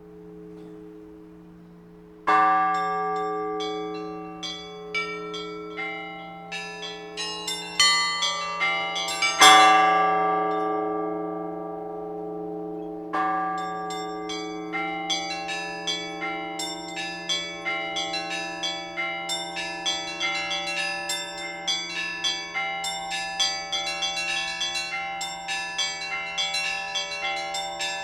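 Orthodox church bells being rung together by hand: a large bell's low hum hangs under everything while smaller bells chime. A heavy stroke comes about two seconds in and a louder one near ten seconds, each followed by a run of quicker chimes. From about thirteen seconds on the small bells chime fast and evenly, several strikes a second.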